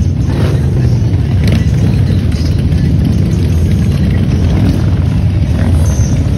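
Several cruiser and touring motorcycles riding slowly past one after another, their engines making a low, steady rumble.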